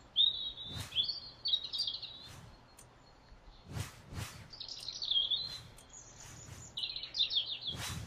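Birds chirping in three short warbling phrases, with a few sharp clicks in between.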